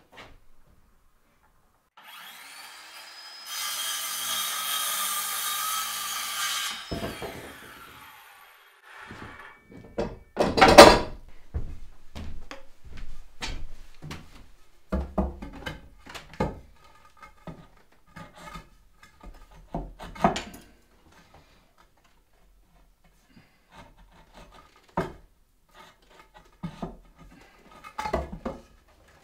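An electric saw spins up and cuts through a wooden board for about three seconds, then winds down. Then come a series of wooden knocks and clunks as the timber stud is handled and fitted against the log wall, the loudest a heavy thump about ten seconds in.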